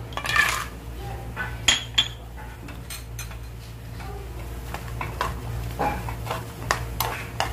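Cashew nuts tipped off a plate into a small frying pan of hot ghee, then a spoon stirring them with scattered clinks and taps against the pan, most of them near the end. A low steady hum runs underneath.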